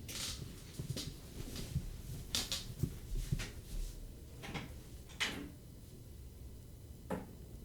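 Scattered soft knocks, clicks and rustles of someone moving about a small room and handling a door, about a dozen irregular sounds with a quieter stretch near the end.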